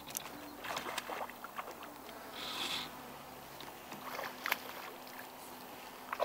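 Hooked rainbow trout splashing and thrashing at the surface as it is played on a fly line, a few short splashes about a second in and again past the four-second mark.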